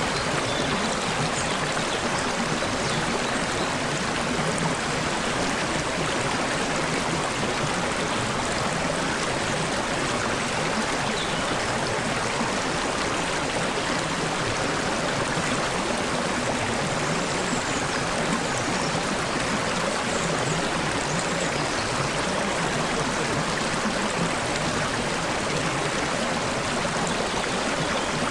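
Steady babbling of flowing stream water over stones, with a few faint, high bird chirps now and then.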